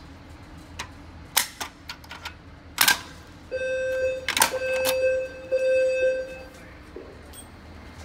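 Plastic-and-metal clicks and a sharp snap from a fire alarm pull station being pushed in, pulled down and then opened with its key. About halfway through an electronic buzzing beep sounds, broken twice and lasting almost three seconds.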